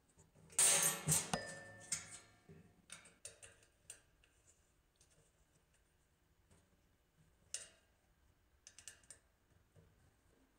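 Small Allen key clicking and scraping against the set screws and stainless steel socket of a utility sink leg as the screws are tightened. A louder metallic clink that rings briefly comes about half a second in, then scattered light ticks, with small clusters of clicks near the end.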